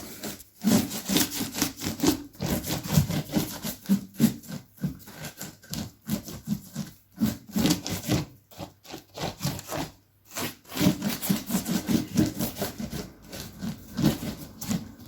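Hand rubbing quickly back and forth over a freshly glued covering on a cardboard box, pressing it down so it holds firm: a run of scratchy rubbing strokes with a few brief pauses.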